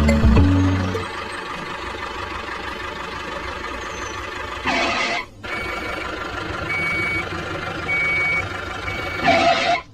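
Heavy construction vehicle's engine running, with its reversing alarm beeping about once a second in the second half. There are two short bursts of hiss, one about halfway through and one near the end.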